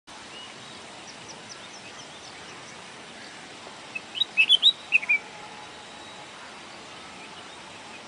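Red-whiskered bulbul singing: one short, loud phrase of bright whistled notes about halfway through. Before it comes a faint, quick run of high thin notes.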